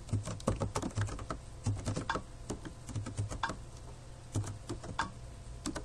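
Typing on a computer keyboard: a run of quick, irregular keystrokes, thickest in the first two seconds, then a few scattered keys.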